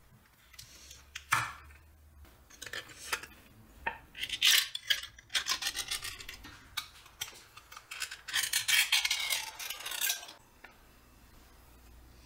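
Ring-pull lid of a metal Spam tin being opened with a spoon levered through the ring: a sharp click about a second in, then the thin metal lid scrapes and crackles as it tears open along its score line in two long rasping stretches. The level drops near the end.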